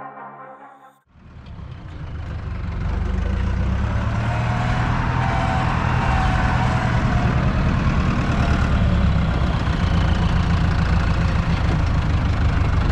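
Farm tractor's diesel engine running steadily, heard from inside the cab; it comes in about a second in.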